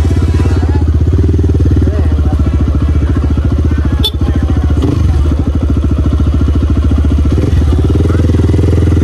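Hyper X250 dirt bike engine running steadily at low, even revs, its firing pulses close and regular. There is a single sharp click about four seconds in.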